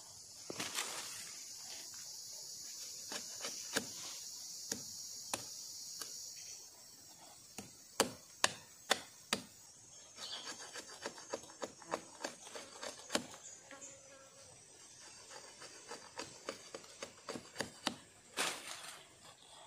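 A machete blade whittling and cutting a green wooden stick: irregular sharp clicks and knocks of cuts, with short scraping shaves between them, in clusters around four seconds in, around eight to nine seconds in and through the second half.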